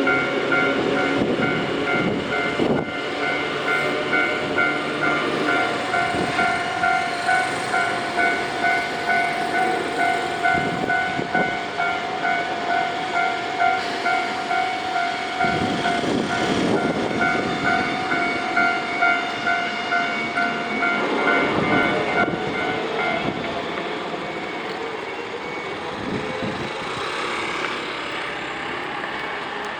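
Level crossing warning bell ringing in an even repeating ding, about one and a half strikes a second, over the rumble of a Tobu 100-series Spacia limited express rolling slowly through the crossing. The bell stops about two-thirds of the way in and the train's running noise carries on.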